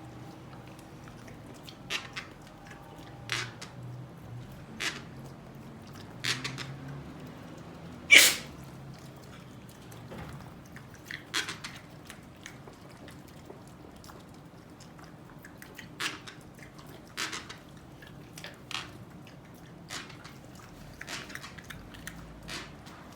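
Micropig snuffling through its nose: short, sharp puffs of breath every second or two, the loudest about eight seconds in.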